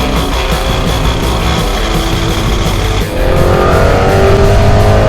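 Rock music with guitar. About three seconds in it gets louder and a car engine comes in, revving up with its pitch rising as it accelerates.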